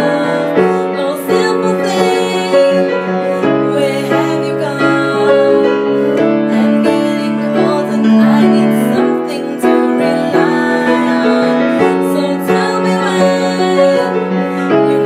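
Background music led by piano, with sustained chords changing every second or two.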